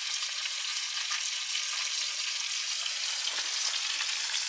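Chunks of burbot frying in butter in a pan on a canister camp stove, a steady sizzle.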